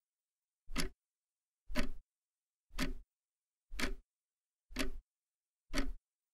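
Clock ticking, one short tick each second, six ticks in a row with silence between them.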